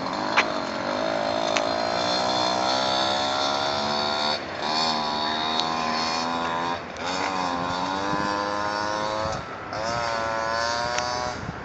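Small two-stroke engine of a gas-powered Go-Ped scooter running at high revs with a buzzing whine. It comes in four runs, each climbing gradually in pitch, with brief dips where the throttle eases between them.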